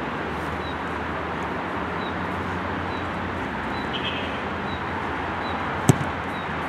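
Steady outdoor background noise, broken near the end by one sharp thud of a football being kicked.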